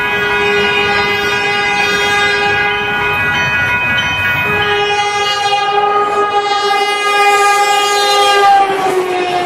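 Caltrain gallery cab car 119 sounding its multi-chime K2 air horn as the train approaches at speed: two long blasts, the second longer, its pitch sagging near the end as the train passes close by, over the rumble of the train on the rails.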